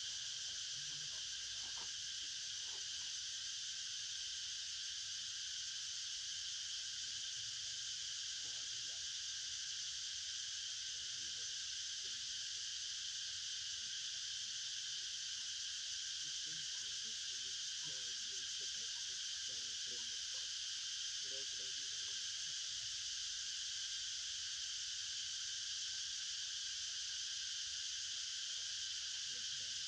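A steady, unbroken insect chorus, high-pitched and layered in several bands, holding at one level throughout. Faint scattered low sounds sit underneath.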